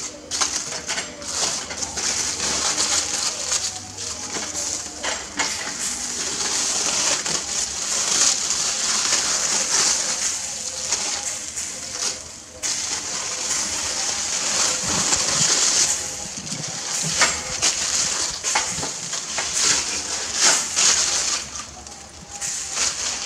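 Aluminium foil wrap crinkling and crackling as it is pulled open and peeled off meat on a rotisserie skewer, with many sharp crackles.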